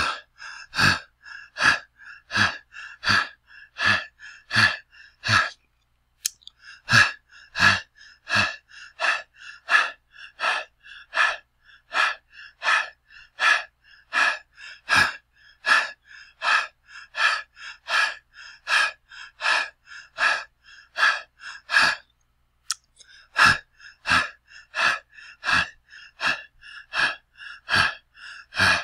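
A person breathing heavily and fast: a steady run of loud, noisy breaths, about one and a half to two a second. The breathing breaks off briefly twice, about six seconds in and about twenty-two seconds in.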